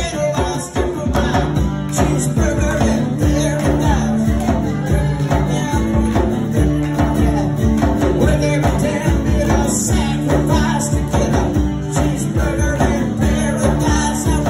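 Live acoustic band music: a strummed acoustic guitar and a djembe hand drum keeping a steady beat, with men singing.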